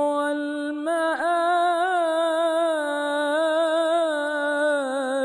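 A solo male religious chanter singing an Egyptian Islamic ibtihal with no accompaniment. He holds one long melismatic note, with a brief dip about a second in and wavering ornaments after it.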